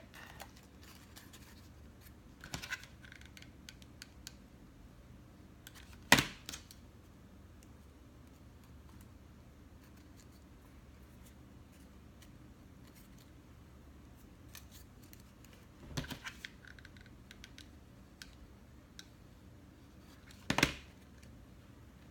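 Light handling noises from hot-gluing a rhinestone strip onto a paper craft: a few sharp clicks and knocks, the loudest about six seconds in and another near the end, with scattered faint ticks in between.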